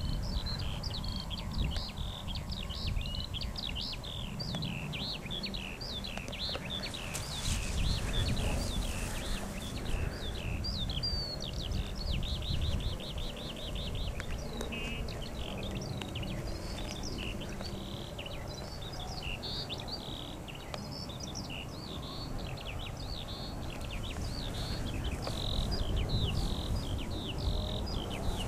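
A dense chorus of many small birds singing at once: quick, overlapping chirps and trills with no pause, over a low rumble.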